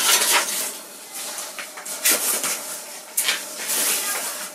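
Paper notes and cards being handled and shuffled, in irregular bursts of rustling.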